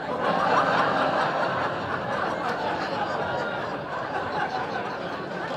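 Audience laughing together at a joke's punchline. The laughter comes up loud at once, then slowly dies down.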